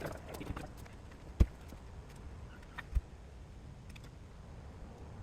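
Scattered light clicks and two sharp knocks about a second and a half apart, from hand tools and parts being handled during work in a car's engine bay.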